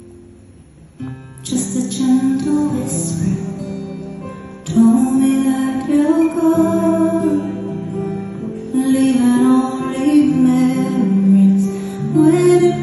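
Live concert band music, an instrumental passage with guitar. It starts softly and swells as more instruments come in about a second and a half in, then louder again near the five-second mark.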